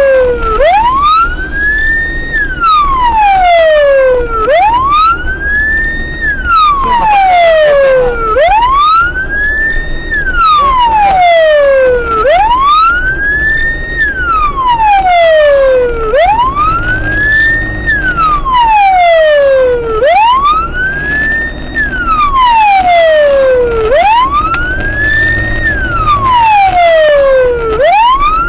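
Police car siren wailing in a slow rise and fall, climbing for about two seconds and falling for about two, repeating roughly every four seconds. It is heard from inside the patrol car over a steady low road and engine rumble.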